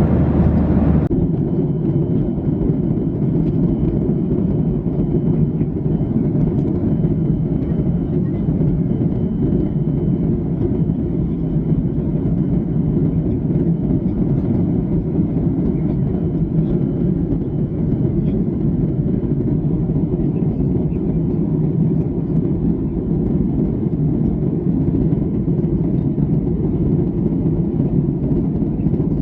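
Boeing 737-800 airliner cabin noise: a loud, steady low rush of the engines and airflow, with a faint thin whine held above it. The character of the noise changes abruptly about a second in.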